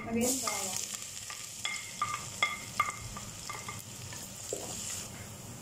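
Chopped garlic sizzling as it hits hot oil in an aluminium pot. A wooden spoon knocks against the pot a dozen or so times, each knock ringing briefly, mostly in the first half.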